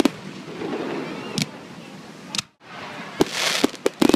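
Aerial fireworks bursting: single sharp bangs about a second and a half and two and a half seconds in, then a quick run of bangs with a spreading crackle near the end.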